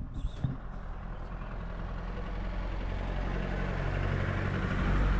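A motor vehicle's engine running with a steady low hum, growing louder as it approaches.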